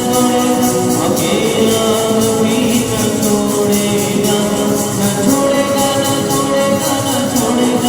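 Devotional worship song music: held, sustained notes over a steady, regular high percussion beat.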